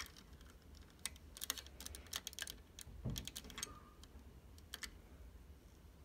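Small clear plastic 3D crystal puzzle pieces clicking and tapping together as they are handled and pushed onto a peg: scattered faint clicks.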